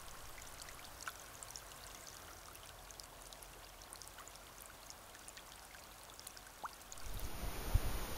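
Water of a partly frozen river running and trickling between ice, faint, with small scattered ticks like drips. About seven seconds in it gives way to a louder steady hiss.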